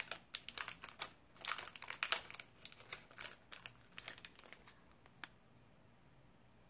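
Foil wrapper crinkling as it is peeled back from a chocolate-coated puff pastry bar: a quick run of sharp crackles that stops a little after five seconds in.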